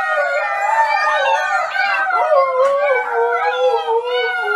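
A litter of husky puppies howling in chorus with an adult husky: several high howls overlap, each wavering and sliding in pitch.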